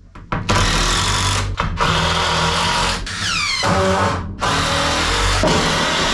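Cordless drill driving screws into wooden shelf boards in several long runs, with the motor whining down in pitch between runs about halfway through.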